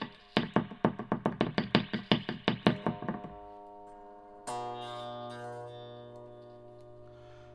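Les Paul electric guitar played through an amp: strings picked rapidly, about five strokes a second for three seconds, then a single chord struck about four and a half seconds in and left ringing as it fades. It is a wiring check of the bridge pickup coil-split to single coil, with the tone control being tried.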